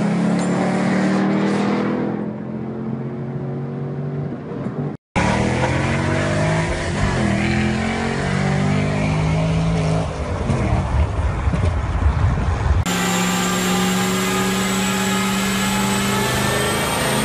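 A car engine heard from inside the cabin, running hard and steady at speed, with a brief dropout about five seconds in and a heavy low rumble a little later. About three quarters of the way in, the sound changes to a Chevrolet Camaro engine running on a chassis dyno, holding a steady note with a faint high whine that rises in pitch.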